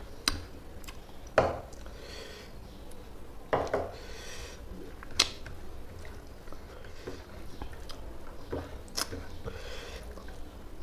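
Eating rice and fish curry by hand: fingers squishing and mixing the rice on a plate, with a few sharp clicks against the plate and chewing between them.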